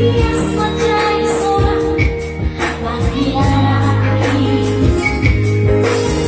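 Live band music: an electronic keyboard playing with a steady beat and bass, and singing over it.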